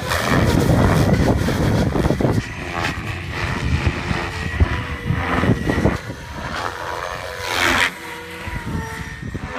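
Goblin 700 electric RC helicopter with three-blade main and tail rotors flying aerobatics: rotor blades swishing and the motor whining, the pitch sweeping up and down with the manoeuvres. It is loudest for the first two seconds or so.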